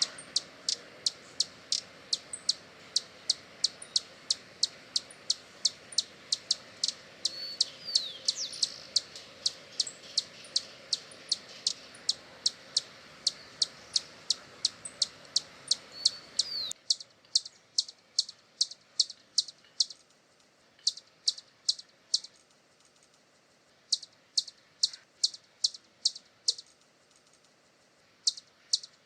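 Hummingbird giving a long series of short, sharp, high chip notes, about three a second. Past the middle the chips come in short runs separated by pauses.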